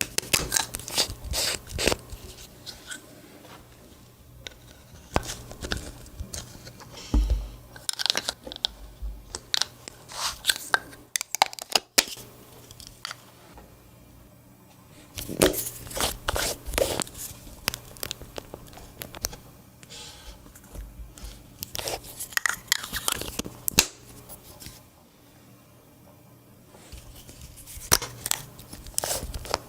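Clear slime being squeezed and kneaded by hand, giving sticky crackling and popping clicks in bursts of a few seconds with short quieter pauses between.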